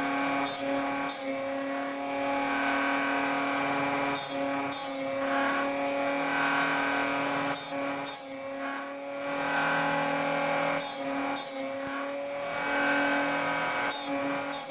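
Dremel rotary tool with a cutoff wheel running at a steady whine, its pitch holding even, while brief high grinding hisses come in pairs every few seconds as the wheel touches each tooth of a silicon steel bandsaw blade to sharpen it.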